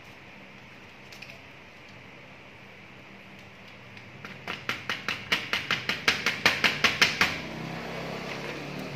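Sharp copier developer unit being shaken and knocked to empty out its old developer: a fast run of rattling knocks, about six a second, starting about four seconds in and lasting about three seconds, then a softer rustling noise.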